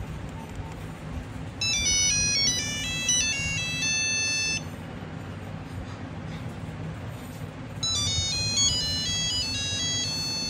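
A Nokia 2100 plays a monophonic ringtone melody of fast stepped beeping notes. It plays twice, about three seconds each time: first about two seconds in, then again near the end. A low steady hum runs underneath.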